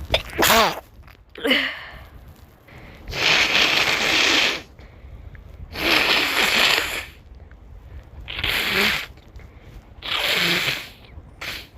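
A person sneezing and blowing their nose: a short voiced sneeze with falling pitch just after the start, then a string of loud, hissing blasts about every two seconds, some lasting over a second.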